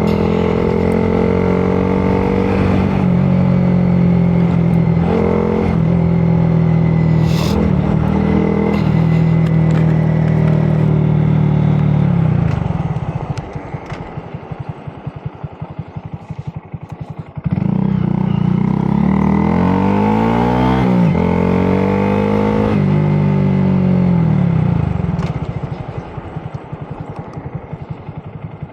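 Honda Grom's small single-cylinder engine under way, pulling steadily. It drops suddenly to a low, pulsing idle about halfway through. It then comes back up sharply with its pitch rising and falling as it accelerates through the gears, and eases off again near the end.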